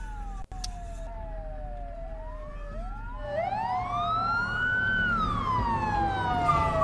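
Fire-engine sirens wailing: several slow rising-and-falling tones overlap, with a low rumble beneath, and they grow louder from about three seconds in.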